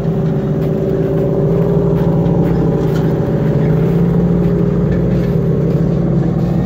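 Vehicle engine running steadily, a loud low drone with a slight waver in pitch.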